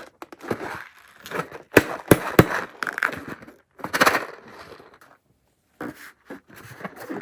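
Crunchy slime being squeezed and mixed, with irregular crackling and crunching and a few sharp cracks about two seconds in.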